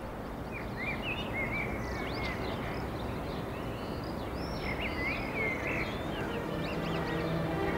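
Birds chirping and singing in quick rising and falling calls over a steady outdoor background hiss.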